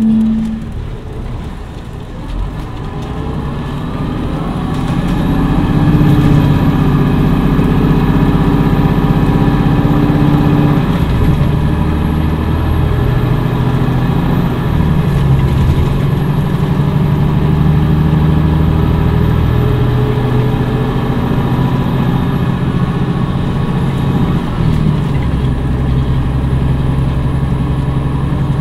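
The Cummins ISM inline-six diesel of a 2011 MCI D4505 motor coach running under load, its tone rising and then dropping back in steps a few times as the Allison B500R automatic shifts up. A faint high whine runs alongside from a few seconds in.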